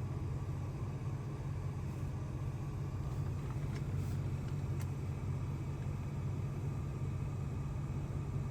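A car running with a steady low drone, as heard from inside or right by the vehicle.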